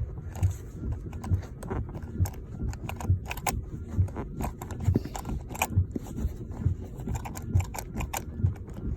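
Jammed seatbelt buckle of a 2013 Lexus GS 350 being worked by hand, its release button pressed over and over, clicking and knocking about twice a second without the belt letting go.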